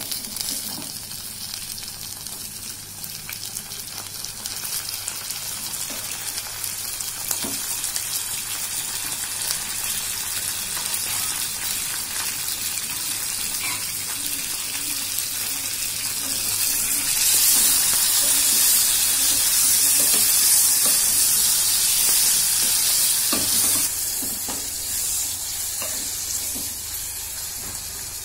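Mutton pieces sizzling in hot oil with fried onions as they are stirred with a wooden spoon. The sizzle swells louder past the middle and eases again near the end, with a few short knocks along the way.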